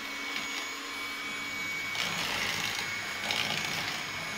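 Handheld electric mixer running steadily, its beaters whisking eggs and sugar in a bowl, with a steady high whine over the motor noise. The sound swells briefly twice in the second half.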